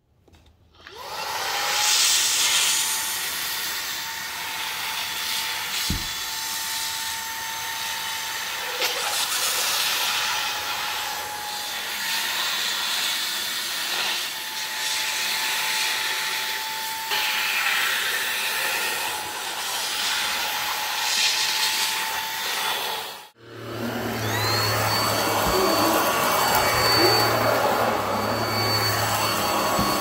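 Afoddon cordless stick vacuum starting up about a second in, then running with a steady motor whine and suction hiss as its narrow nozzle works over leather upholstery. After a brief cut-out near the end it runs again with the main floor head on carpet: a higher whine rises as the motor comes up to speed, over a low pulsing hum.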